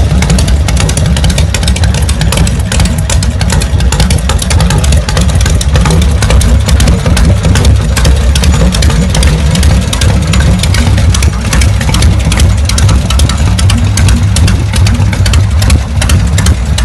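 Vintage Harley-Davidson V-twin engine idling, loud and steady, as a rapid run of exhaust pulses.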